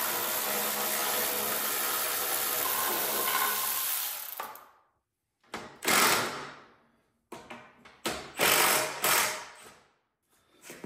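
Cordless drill driving bolts out of a garden tractor while the fuel tank is being removed. It runs steadily for about four seconds, then in several shorter bursts near the middle and end.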